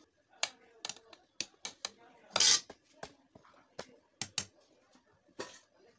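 A steel ladle clinking and scraping against the sides of an aluminium handi while stirring fried jackfruit pieces: a string of sharp metal clicks and knocks, the loudest a longer scrape about two and a half seconds in.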